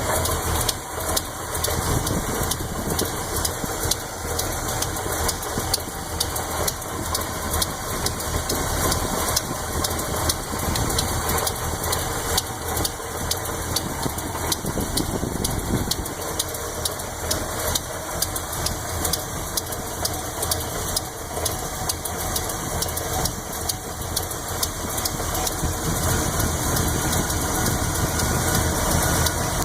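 400 Chevy small-block V8 idling with a quick, steady ticking from the valvetrain: a lifter tick on the even-side cylinder bank, which the owner suspects is a bad lifter since the valve lash checks out.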